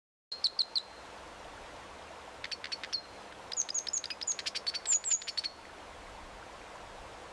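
A bird giving short, sharp, high-pitched calls in three bouts: a few notes just after the start, a short run about two and a half seconds in, and a faster series from about three and a half to five and a half seconds. A steady background hiss runs underneath.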